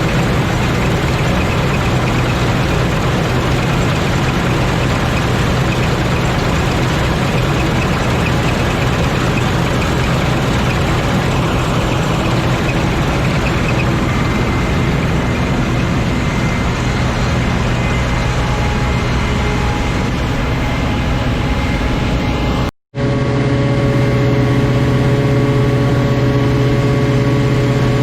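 Claas Lexion 420 combine harvester running steadily: a loud, dense machine drone over a constant engine hum. After a brief break about three-quarters of the way through, the engine hum sounds steadier and its pitch stands out more clearly.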